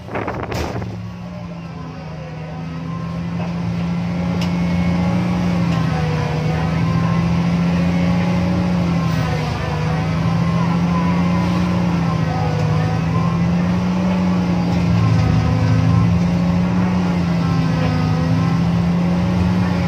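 Hitachi hydraulic excavator's diesel engine running under load while the bucket digs overburden, heard from inside the operator's cab. A steady drone that wavers gently in pitch as the machine works and grows louder over the first several seconds.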